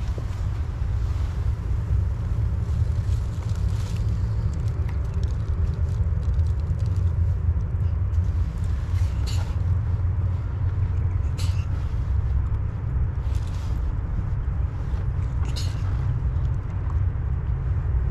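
Steady low rumbling noise, with a few short, sharp high-pitched sounds about halfway through and again near the end.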